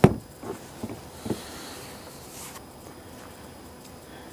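A sharp knock, then three softer knocks about half a second apart, followed by a faint brief hiss.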